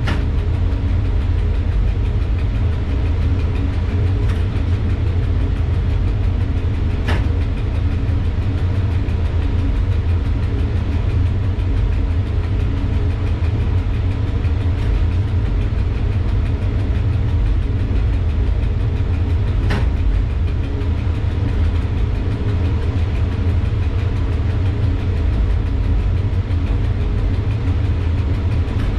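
EU07 electric locomotive running light, heard from its cab: a steady low rumble with a constant hum over it, and two short sharp clicks, about seven and twenty seconds in.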